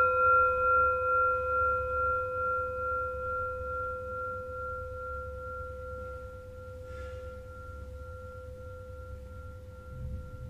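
A struck metal bell or bowl ringing out in a steady tone with several higher overtones, its loudness wavering in a slow, even pulse as it gradually fades.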